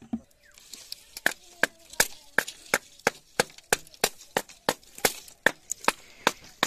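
A machete-type blade chopping into split bamboo slats, a run of sharp, evenly spaced wooden knocks at about three a second.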